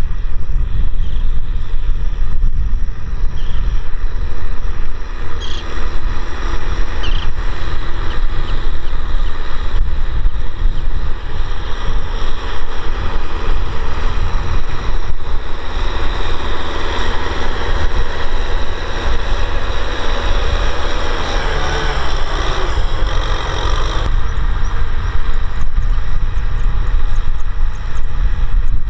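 Kubota M6040SU tractor's diesel engine running steadily under load while pulling a disc harrow through dry soil, with a heavy low rumble. The sound grows louder through the middle and drops off suddenly with about five seconds left.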